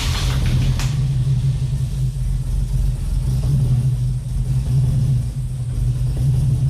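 Holden VK Commodore's 202 straight-six engine running with a steady low rumble as the car sits or rolls slowly. There is a short click just under a second in.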